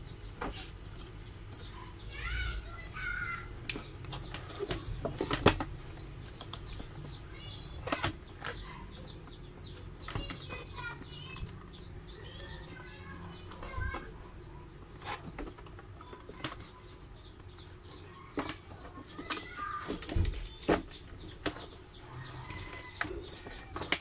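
Scattered clicks and knocks of hands handling a coffee maker's plastic housing and pulling at the wire push-on terminals at its switch. Birds chirp in the background, with short runs of calls.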